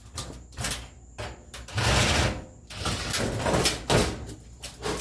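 Sheet-metal dryer parts being handled: a series of knocks, clanks and short scraping sounds.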